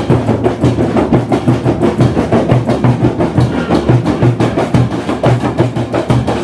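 Drum-led percussion music, with a steady, quick beat of about three strokes a second.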